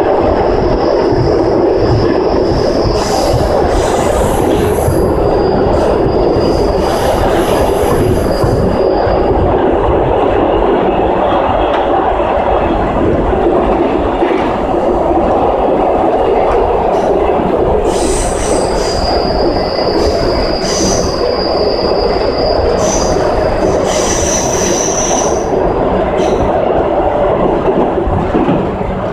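CAF FE-07 metro train with steel wheels running at speed, a steady loud rumble of wheels on rail. A high-pitched wheel squeal comes in twice, through about the first nine seconds and again from about eighteen to twenty-six seconds in, as the train takes curves.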